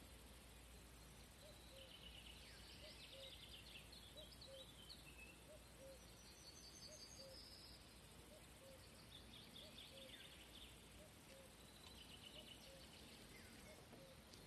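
Near silence with faint songbird song in four short chirping phrases. A faint low note repeats a little more than once a second underneath.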